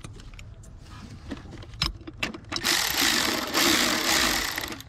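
A small cordless power tool runs for about two seconds, starting a little past halfway, driving the battery hold-down bracket's fastener tight. Scattered light clicks and knocks of handling come before it.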